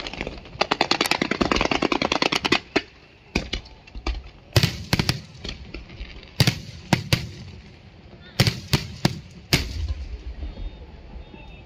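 Aerial fireworks shells bursting overhead: a rapid crackling volley of sharp bangs for about two seconds, then about a dozen single loud booms spaced roughly half a second to a second apart.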